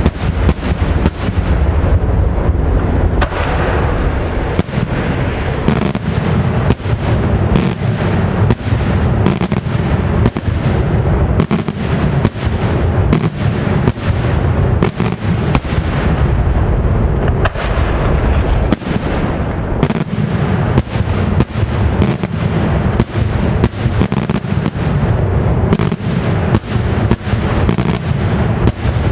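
Daytime aerial fireworks: a dense, unbroken barrage of shell bursts, sharp bangs coming several times a second over a constant low rumble.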